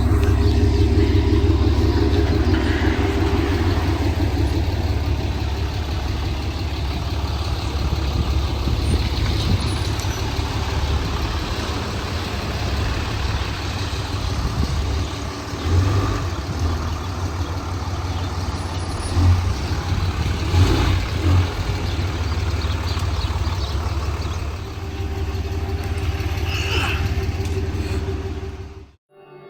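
Tow truck's engine running, with road noise and a few brief louder sounds partway through. The sound cuts off abruptly near the end.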